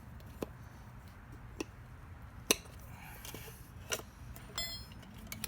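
Metal tire levers clinking and clicking against the wheel rim as the tire bead is levered off: a handful of sharp clinks spread out, the loudest about two and a half seconds in, and one ringing briefly near the end.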